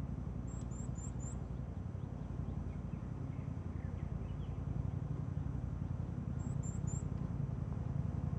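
Outdoor ambience with a steady low rumble, over which a bird gives two short series of high quick chirps: four about half a second in, and three more around six and a half seconds in.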